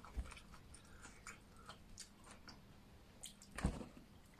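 Quiet mealtime sounds: faint chewing and scattered small clicks of food being handled, with one soft thump shortly before the end.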